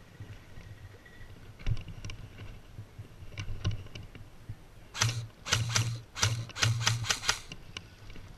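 Electric airsoft rifle firing several short bursts of rapid clicks with a low motor hum, about two thirds of the way in, after a few scattered single clicks.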